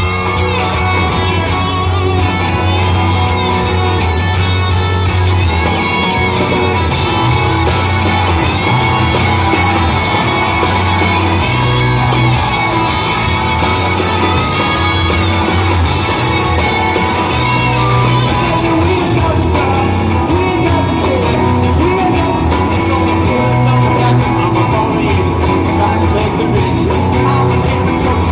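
Rock band playing live: electric guitar and a singer over a heavy bass line that shifts note every few seconds.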